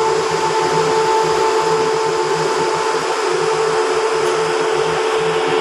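Steady mechanical drone: an even rushing noise with a constant hum, with an uneven low rumble beneath it.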